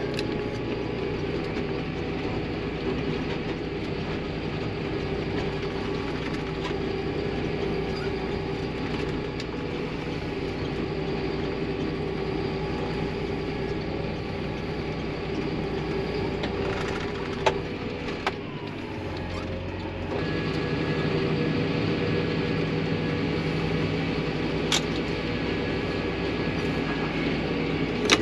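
Farm machinery running steadily, a constant hum with a steady pitch. Around two-thirds of the way through it dips briefly and then runs on a little louder.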